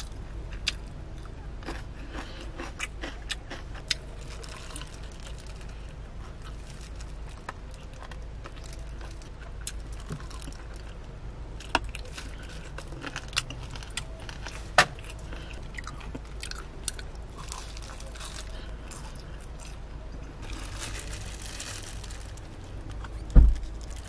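Close-up eating: bites and chewing of fried chicken, with many scattered small crunches and clicks over a low steady hum. A loud low thump comes near the end.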